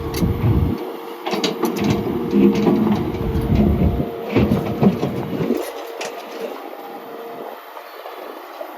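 John Deere 160G LC excavator's 4.5-litre diesel and hydraulics working with a steady whine and a low rumble, while the hydraulic thumb and bucket grip concrete, giving scattered knocks and scrapes. About two-thirds of the way through, the rumble and knocks fall away, leaving the steady whine.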